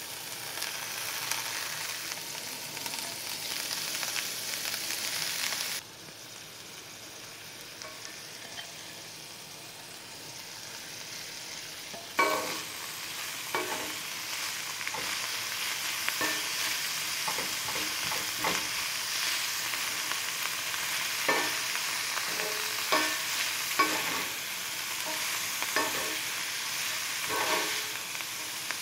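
Shredded cabbage sizzling in a hot cast-iron skillet. Partway through, a slotted wooden spatula starts stirring it, knocking and scraping against the pan every second or two.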